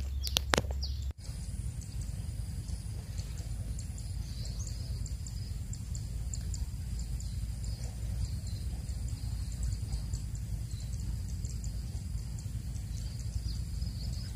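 Outdoor rural ambience by a river: a steady high-pitched hum dotted with frequent short bird chirps over a steady low rumble. A couple of sharp handling knocks come in the first second, and the sound cuts out briefly just after.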